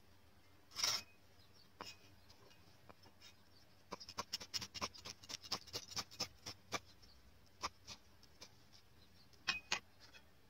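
Cleaver chopping red chillies on a wooden chopping board: a thump about a second in, then a quick run of sharp knife strikes on the wood, about five a second for some three seconds, with a few scattered strikes after.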